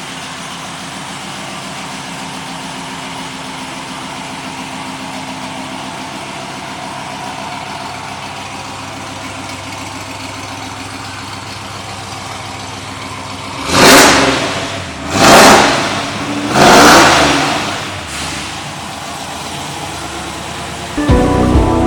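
Supercharged 6.2L V8 of a Chevrolet Silverado Yenko S/C idling steadily through its cat-back exhaust. About fourteen seconds in it is revved three times in quick succession, each rev dropping back to idle, the third held a little longer.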